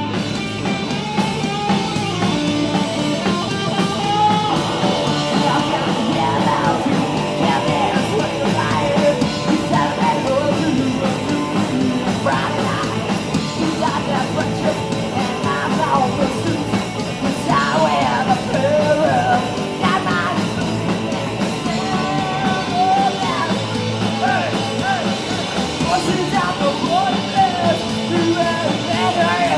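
Live punk rock band playing at full volume with electric guitars, bass and drums. A shouted singing voice runs over it.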